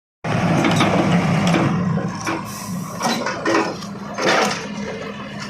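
Hyundai R110 excavator running, with its engine humming steadily and repeated metallic clanks and rattles from the machine as it moves during unloading.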